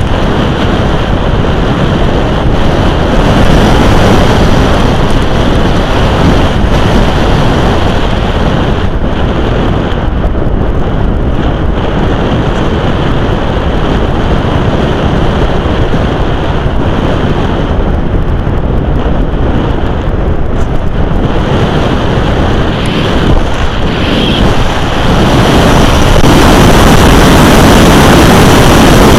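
Loud rushing of air over the onboard camera of a radio-controlled glider in flight. It swells louder and hissier near the end as the glider noses down and gathers speed.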